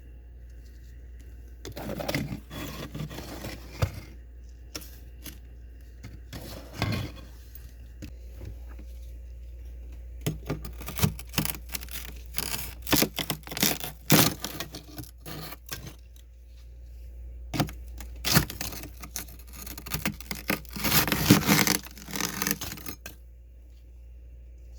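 Powdery freezer frost being scraped and crunched, in irregular bursts of crisp crackling scrapes separated by short pauses.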